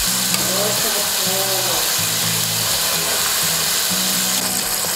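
Hot oil sizzling steadily as battered chicken pieces deep-fry, under background music with a low repeating bass line.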